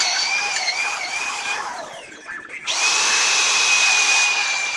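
Electric drill boring holes through a steel sprocket: the motor's high whine dips and wavers under load, winds down about two seconds in as the trigger is let go, then runs up again and holds steady until it stops at the end.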